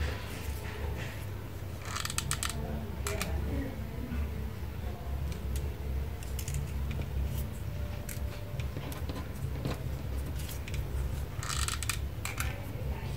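Hands working with paper pieces while gluing a craft: scattered light clicks and taps, with two short rapid bursts of clicking about two seconds in and near the end, over a steady low hum.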